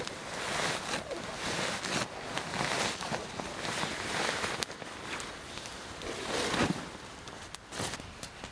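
Thick fabric bedding rustling and swishing as it is handled and spread out, a steady stream of rustles with scattered small clicks.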